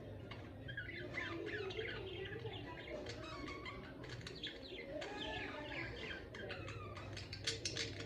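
Pet budgerigars chattering and warbling in quick, squeaky, overlapping chirps, with a run of sharp clicks or wing flutter about seven seconds in.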